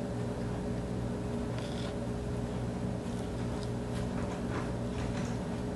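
Faint soft cuts of a kitchen knife going into a raw pork loin, over a steady low machine hum in the room.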